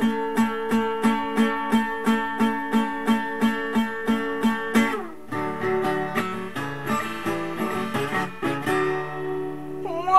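Acoustic guitar strummed in an even rhythm, about three strokes a second on one chord for the first five seconds, then moving through changing chords.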